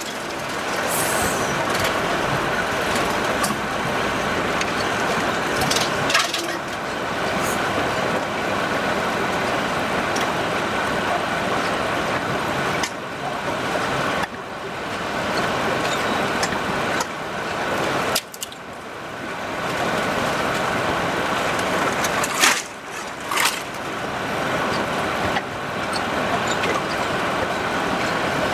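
Sawmill machinery running with a steady, loud mechanical noise, cutting abruptly to other running machinery several times.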